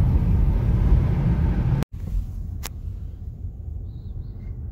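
Car cabin road noise: a steady low rumble of tyres and engine at highway speed, cut off abruptly about two seconds in. It is followed by a quieter low rumble of the car rolling slowly, with a single sharp click partway through.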